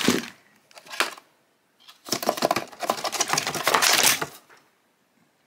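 A cardboard kit box shaken hard, with a plastic bag of small bottles and supplies rattling and knocking inside it: a short burst at the start, one knock about a second in, then a dense rapid rattle for about two seconds.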